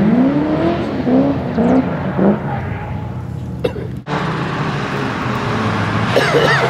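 Drift car engines revving, the pitch sweeping up and falling back over and over. About four seconds in the sound cuts off for a moment, then the engine noise comes back steadier, and tyres begin to squeal near the end.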